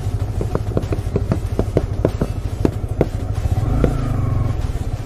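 Motorcycle engine running with a steady low rumble, and a run of sharp, irregular clicks over the first three seconds. The rumble swells briefly about four seconds in.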